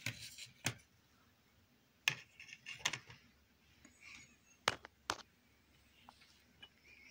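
Small cardboard paintings being handled and laid down: about half a dozen light clicks and taps spaced a second or so apart, with soft rustling between.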